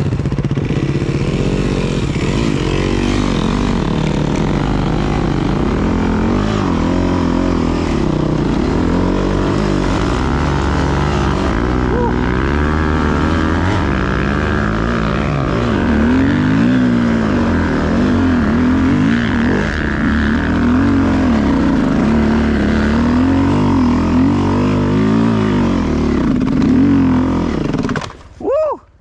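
Enduro dirt bike engine being ridden under load through deep snow, its revs rising and falling over and over as the throttle is worked. The sound cuts off abruptly near the end.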